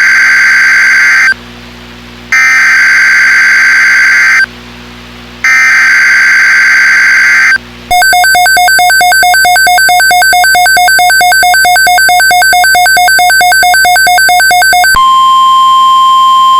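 Emergency Alert System alert tones on NOAA Weather Radio. First come three loud screeching digital data bursts, about a second apart: the SAME header that codes the severe thunderstorm watch. Then a rapid, evenly pulsing two-pitch electronic beeping runs for about seven seconds, and about fifteen seconds in a single steady 1050 Hz weather-radio alert tone takes over.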